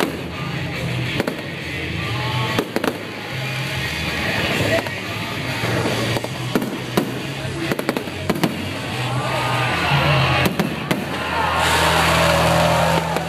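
Aerial fireworks bursting: repeated sharp bangs and crackling, growing denser and louder near the end.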